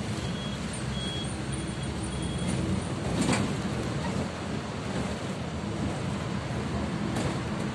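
City bus engine and road noise heard from inside the moving bus, steady throughout. A faint repeating electronic beep sounds for the first two seconds or so, and a sharp clack comes about three seconds in.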